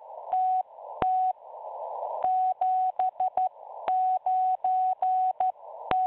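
Morse code: a single steady beep tone keyed in short dots and longer dashes, in groups, with radio static hiss filling the pauses between the groups and a sharp click at some key strokes.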